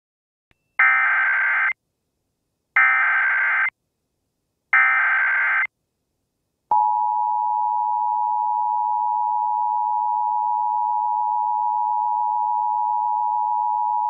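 Emergency Alert System SAME header: three short bursts of shrill digital data tones, each about a second long and two seconds apart. About seven seconds in, the steady two-tone EAS attention signal starts and holds.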